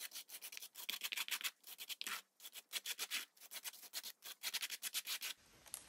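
Palette knife scraping gesso mixed with fine sand across a stencil onto paper, in many quick, short strokes with a grainy rasp, stopping shortly before the end.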